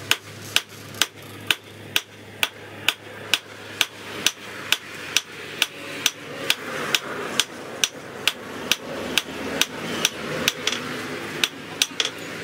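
Hand hammer striking a red-hot rebar bar on a steel anvil in a steady rhythm of about two sharp metallic blows a second, forging the bar flat.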